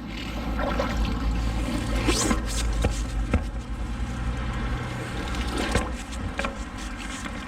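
Shallow river water sloshing and trickling as it is stirred, with scattered knocks and scrapes over a steady low rumble.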